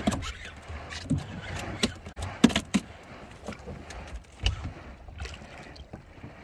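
Choppy water slapping and lapping against the side of a small boat, with scattered sharp knocks and clicks and a low rumble underneath.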